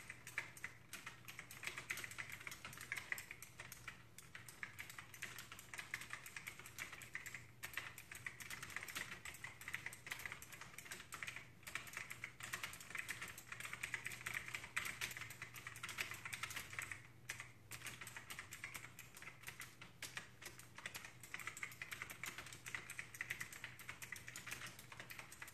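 Fast, continuous typing on a 'lipstick' mechanical keyboard with round typewriter-style keycaps: a dense stream of key clicks, broken only by a couple of brief pauses.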